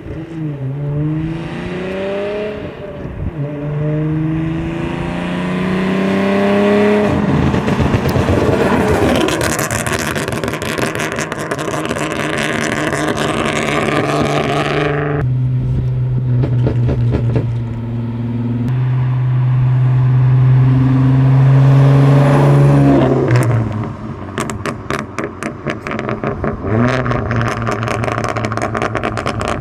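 Tuned Ford Mustang V6 accelerating hard, its engine note rising twice through gear changes and then holding a steady drone. About 24 seconds in the driver lifts off and the exhaust breaks into a rapid run of crackles and pops from the pop-and-bang tune. Heard from inside the cabin.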